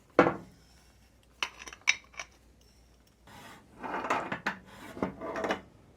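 Workshop handling of strut parts and tools: a knock, a few light metallic clinks, then a few seconds of uneven scraping and rubbing of metal.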